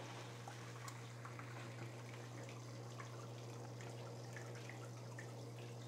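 Wash water from a portable washing machine's drain hose splashing and trickling into a metal sink as the machine drains, with a steady low hum underneath.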